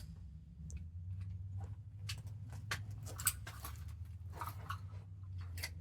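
Scattered sharp metallic clicks and knocks from a semi-automatic pistol being handled after a stoppage, which the shooters argue over as a possible double feed, over a steady low hum.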